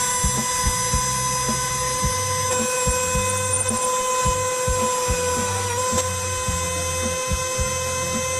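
A steady high-pitched machine whine, stepping slightly in pitch twice, over background music with a regular bass beat.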